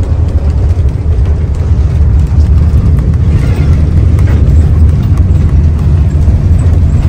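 Mercedes-Benz OH 1521 bus under way: a steady, loud low rumble of engine and road noise, growing slightly louder a little over two seconds in.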